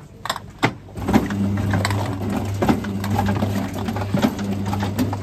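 A few clicks, then about a second in a Zummo automatic orange juicer starts up: a steady motor hum with a knock a little under once a second as it cuts and squeezes the oranges.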